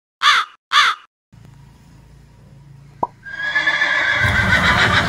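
Two harsh crow caws in quick succession, a comedy sound effect marking an unanswered question and cut in over dead silence. After a stretch of faint background noise and a click, light music starts a little after three seconds in.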